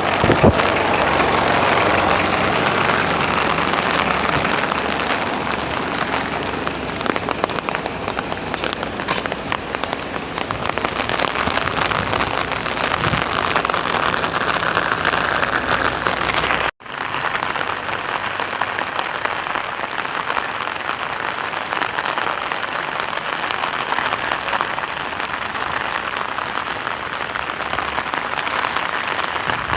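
Steady rain falling and pattering on surfaces, a continuous even hiss. It cuts out for an instant just past halfway and resumes with a little less low rumble.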